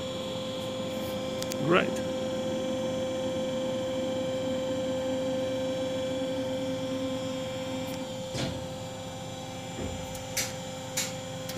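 CNC lathe running at the end of its program: a steady machine hum, with a brief rising whine about two seconds in and a low running noise that fades about eight seconds in. A few sharp clicks follow near the end as the tool turret indexes for the tool change.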